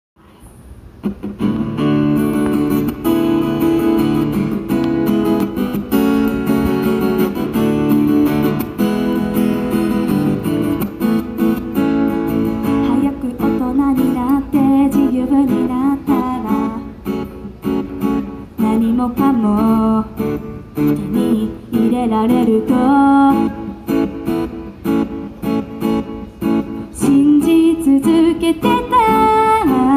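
Acoustic guitar strummed live, starting about a second in, with a woman's voice singing over it from about halfway through.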